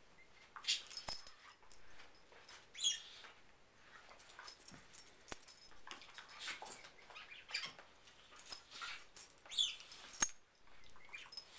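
Two dogs, one a border collie, play-fighting mouth to mouth ("bitey face"): soft scuffling and mouthing on a rug, a few sharp clicks, and a couple of short high-pitched squeaky whines.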